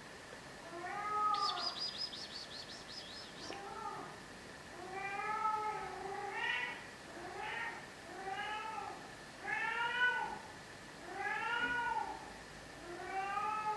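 A cat yowling over and over when left alone: about ten drawn-out calls, each around a second long, rising and falling in pitch.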